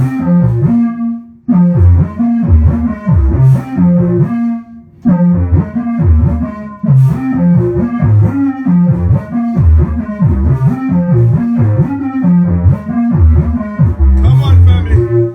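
Grime music playing loud, with a heavy, stepping bass line; the music drops out briefly about a second and a half in and again just before five seconds.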